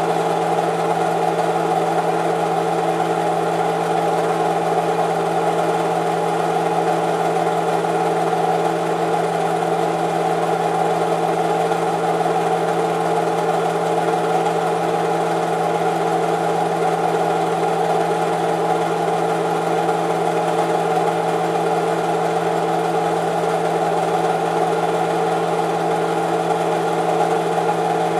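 Movie film projector running: a steady mechanical whir and hum from its motor and film transport.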